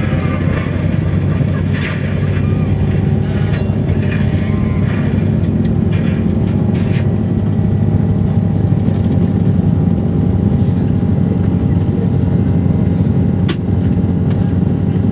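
Steady drone of a vehicle's engine and tyres heard from inside the moving vehicle, with one sharp click near the end.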